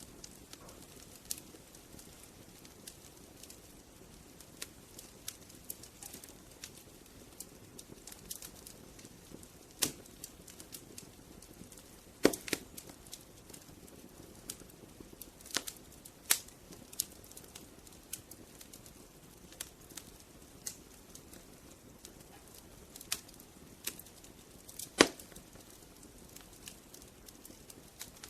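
Wood fire burning: a low steady hiss of flames with scattered sharp crackles and pops from the burning logs, a few of them much louder, about ten, twelve, sixteen and twenty-five seconds in.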